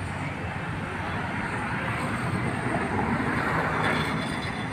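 Steady noise of road traffic, with no distinct events.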